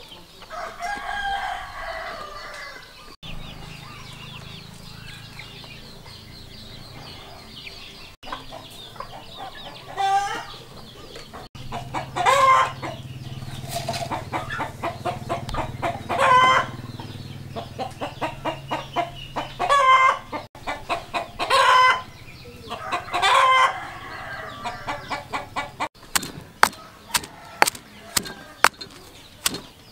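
Chickens clucking and calling on and off. Near the end, a stone pestle starts pounding in a stone mortar: sharp, regular knocks about two a second.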